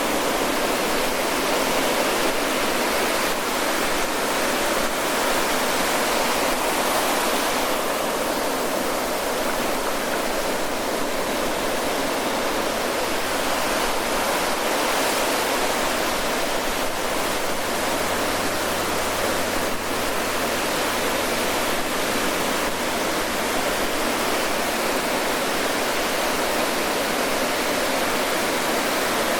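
Ocean surf washing onto a sandy beach: a continuous, even roar of breaking waves with no single crash standing out. A faint low hum sits underneath for several seconds in the middle.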